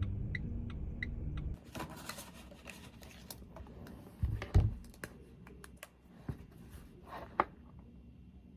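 Background music that stops about a second and a half in, followed by scattered small clicks and knocks of objects being handled, with two heavier dull thumps about halfway through.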